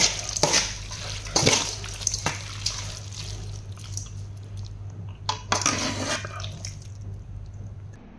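Liquid splashing and dripping with clinks of utensils and dishes, in several short bursts, over a steady low hum that stops just before the end.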